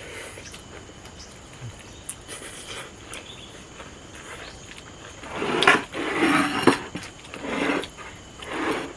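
A person eating a rice meal with shredded chicken: a few loud bursts of chewing and crunching start about five seconds in, with sharp clicks among them.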